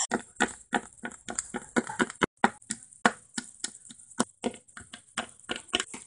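Small plastic Littlest Pet Shop figures tapped and hopped along a hard surface: a quick, irregular run of light clicks and taps, about five a second.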